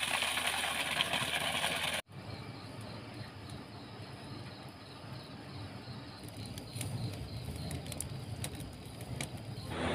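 Wood fire burning under a large iron vessel of boiling paddy, heard as a steady rushing noise with a few scattered crackles. The sound drops abruptly to a quieter level about two seconds in.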